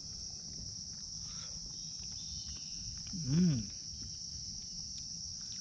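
Steady high-pitched insect chorus from the forest. A man gives one short hummed 'mmm' about three seconds in, its pitch rising then falling.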